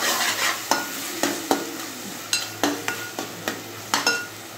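A steel spoon stirring and scraping grated papaya frying in ghee and sugar in an aluminium pot. The spoon knocks and clicks against the pot's metal sides every few tenths of a second, some knocks ringing briefly, over a soft sizzle.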